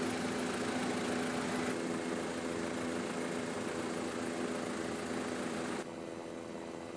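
Steady engine and cabin drone of the aircraft filming from above, with a constant low hum of several tones under a wide hiss. It drops suddenly in level about six seconds in.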